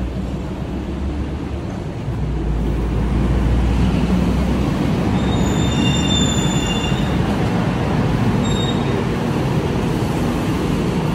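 City bus engine rumbling with traffic noise as a bus pulls into the stop, its brakes giving a high squeal about halfway through and a brief second squeal a little later.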